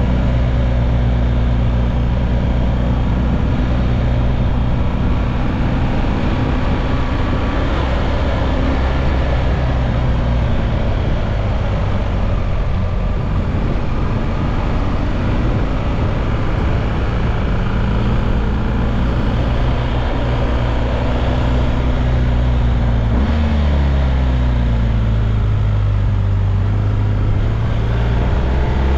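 Motorcycle engine running steadily at road speed, with wind noise over the microphone. About three quarters of the way through the engine note drops and holds lower, then climbs again near the end.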